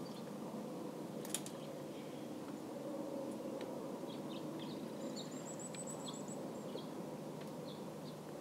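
A small songbird gives short high chirps and, about halfway through, a quick very high trill, over a steady low background hum. There is a sharp click a little after a second in.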